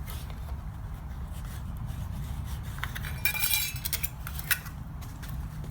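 Light metallic clinks and rattles of a thin tin can lid and small parts being handled, with a short scraping rustle about three seconds in and a sharp clink about a second later, over a low steady hum.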